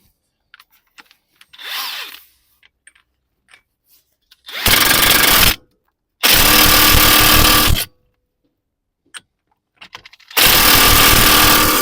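Cordless power tool run in three bursts, the last the longest, snugging up a nut on the refitted front hub before final tightening with a torque ratchet.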